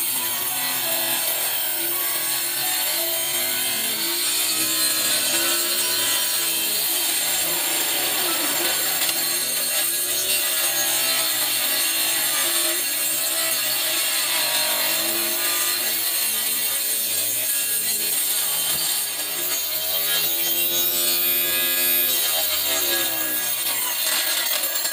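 Homemade mini table saw, a 775 DC motor driving a small cutting blade, running and sawing through a thin board fed against the fence. It is a steady whine whose pitch repeatedly dips and recovers as the blade bites.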